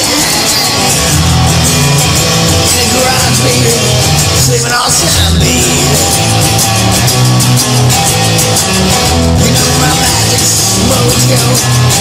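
Loud rock music with electric guitar, playing steadily.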